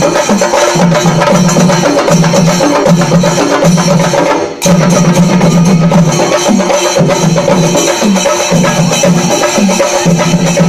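Traditional Kerala percussion ensemble drumming a loud, fast, repeating rhythm. The sound dips briefly about four and a half seconds in.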